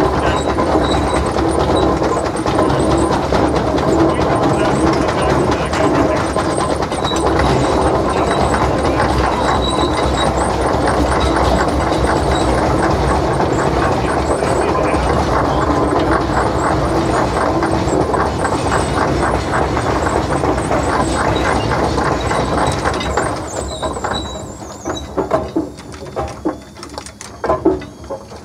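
Steam traction engine under way: its running gear and drive wheels clatter and squeal steadily. About 23 seconds in the noise drops away, leaving a few scattered clanks and knocks.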